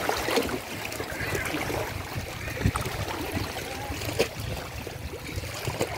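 Shallow seawater lapping and trickling around rocks at the water's edge, with a few small sharp splashes.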